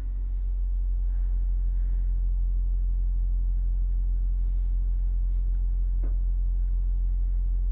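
Steady low electrical hum with a stack of evenly spaced overtones. It swells over the first second and then holds level, with one faint click about six seconds in.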